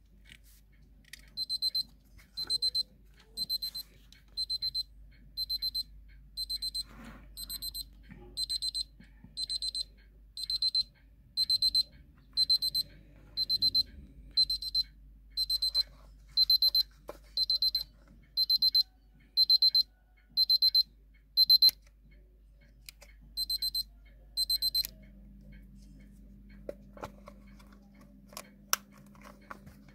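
Wehrle travel alarm clock's alarm beeping: short bursts of rapid high-pitched beeps about once a second, growing steadily louder. After a brief pause it beeps twice more, then stops about 25 seconds in.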